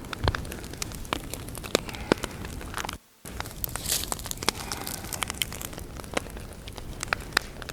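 Fire of green sawmill slab wood burning, crackling with frequent sharp pops over a steady hiss.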